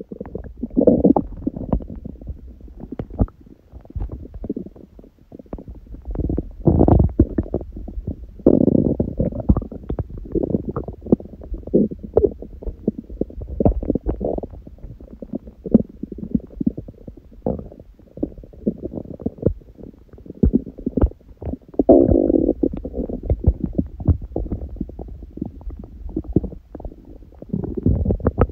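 An empty stomach growling from hunger: low rumbles swell up several times, with a constant run of small gurgling pops and clicks in between.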